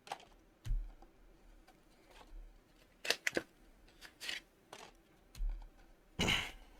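Photocard packs being opened and the cards handled: a string of light, scattered clicks and rustles, about one a second, with a longer rustle near the end.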